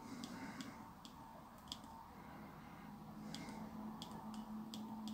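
Nokia mobile phone's keys clicking softly under the thumb as its menus are scrolled. About ten irregular clicks, with a pause of a second or so in the middle.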